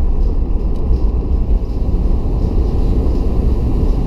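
Steady low rumble of a car driving along an open road, its tyre and engine noise heard from inside the cabin.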